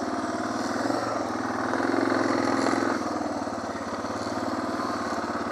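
Suzuki DR650SE's single-cylinder four-stroke engine running under way, its note picking up briefly about two seconds in and then easing back.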